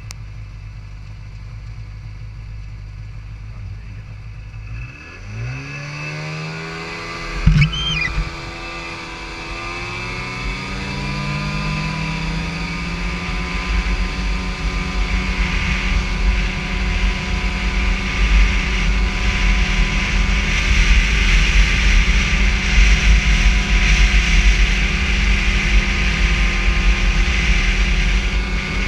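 Snowmobile engine idling, then revving up and pulling away about five seconds in, with a sharp knock a couple of seconds later. It then runs at a steady speed along the trail, with a hiss of track and air growing louder.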